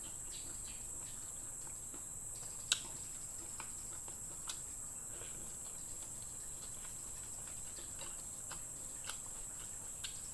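Steady high-pitched chirring of insects, crickets-like, with a few faint sharp clicks, the loudest nearly three seconds in.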